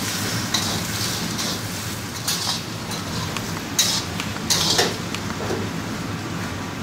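Metal spatula scraping and stirring mashed potato masala in an iron pan, in irregular strokes about once a second over a steady low hum.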